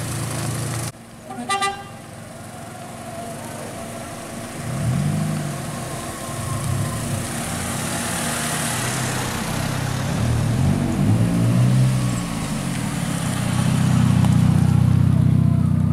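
A car horn gives a short toot about a second and a half in, then car engines run and rev as the cars pull away, their pitch rising and falling, growing louder near the end.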